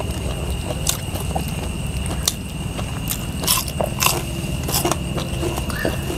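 People eating at a table: chewing and crunching, with scattered crisp snaps and clicks as fresh lettuce and greens are torn and bitten, over a steady low hum and a thin steady high tone.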